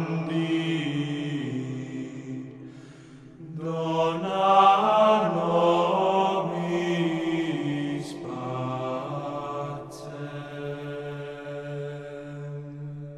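Slow chanted singing on the soundtrack, with long held notes stepping from pitch to pitch. The phrase breaks off briefly about three seconds in, then carries on.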